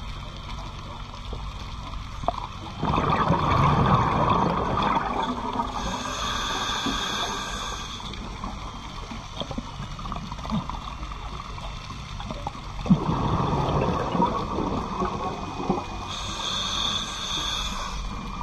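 Scuba diver breathing through a regulator underwater. There are two breath cycles about ten seconds apart, each a burst of bubbling exhalation followed by the hiss of an inhale through the regulator, over steady underwater noise.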